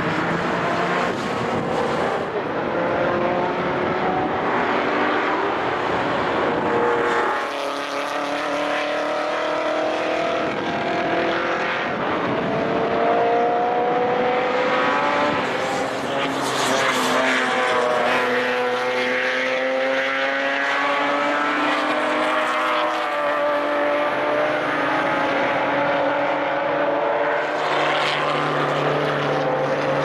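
Historic racing cars' engines running hard through a corner, several engine notes overlapping and rising and falling as the cars accelerate, shift and pass one after another.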